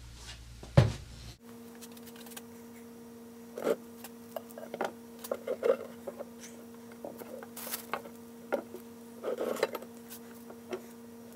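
Large vernier calipers being handled: a loud knock just under a second in as they come out of their wooden case, then scattered metallic clicks and taps as they are laid on the bench and set against a tractor steering shaft. A steady low hum runs under the clicks from about a second and a half in.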